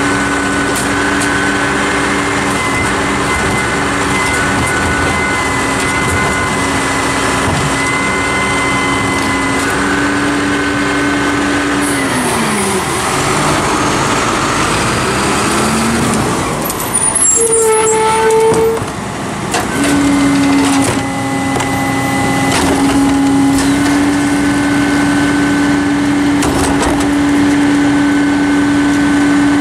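Hino rear-load garbage truck running with a steady engine and hydraulic whine. About twelve seconds in the pitch falls and rises again as the truck pulls ahead to the next stop, followed by a short air-brake hiss. The steady whine then returns while the cart tipper lifts a trash cart into the hopper.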